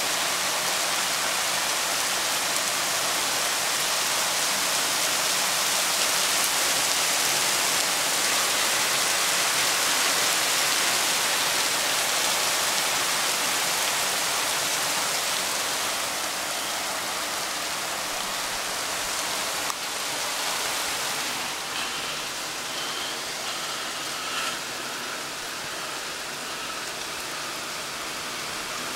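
Heavy rain pouring steadily in a dense hiss that eases a little in the second half.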